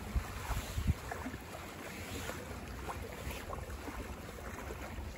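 Wind buffeting the microphone over water sloshing against a boat's hull, with a couple of gusty thumps in the first second.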